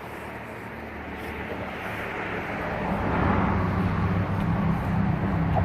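A vehicle engine running with a steady low hum, growing louder about halfway through as it draws near.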